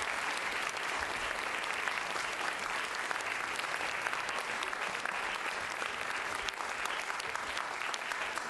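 Audience applause: many hands clapping in a dense, even patter at a steady level.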